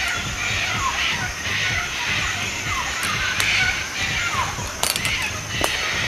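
A large flock of sulphur-crested cockatoos screeching, many harsh calls overlapping into a continuous din. Two sharp clicks come near the end.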